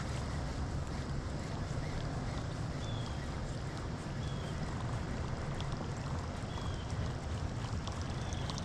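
Steady low rumble of wind on the microphone with water moving around a kayak, and a few faint short high chirps.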